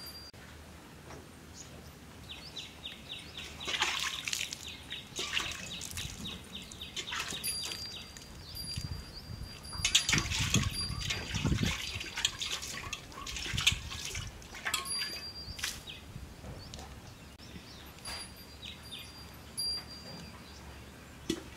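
Cow being hand-milked: milk squirting into a steel pot in irregular short spurts, heaviest about halfway through.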